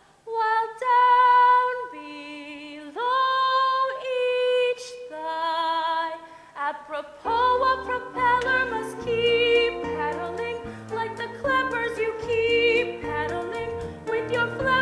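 A female voice sings long held notes with vibrato in a stage-musical number. About seven seconds in, an accompaniment with a bass line comes in under the singing.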